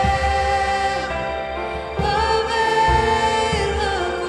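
Worship song: voices singing long held notes over a band with a steady bass, a new phrase starting about two seconds in.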